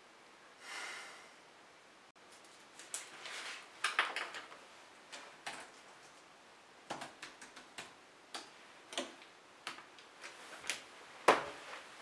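Laptop keyboard being typed on: scattered key clicks, some in quick runs, then a louder knock near the end as the laptop lid is shut.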